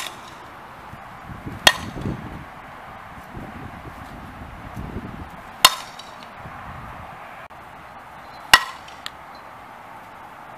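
Fastpitch softball bat hitting tossed balls: three sharp cracks, each with a short ring, a few seconds apart.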